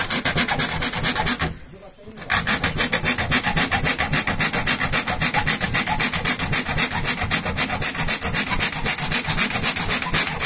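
Hand cutting through the ceiling board from above, a saw or blade worked back and forth in quick even strokes, about four a second, with a short pause about two seconds in.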